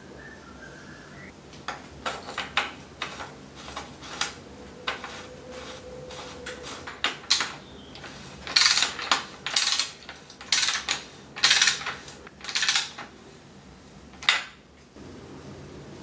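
Metal threads scraping and clicking as a cartridge bottom bracket is screwed by hand into a bicycle frame's bottom bracket shell. The sounds come as short scrapes about two a second, growing louder after the first few seconds.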